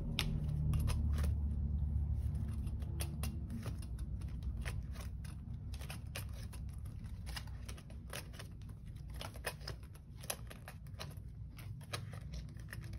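Cash-budget envelopes and binder pages being handled and moved: irregular light clicks and rustles of paper and plastic, over a low steady hum.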